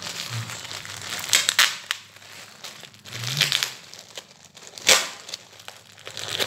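Black plastic shipping mailer crinkling as it is handled and pulled open by hand, in several sudden bursts, the loudest a little before the end.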